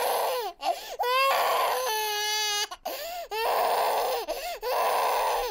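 Baby crying: a run of loud, wavering wails broken by short catches of breath, with one steadier held cry in the middle.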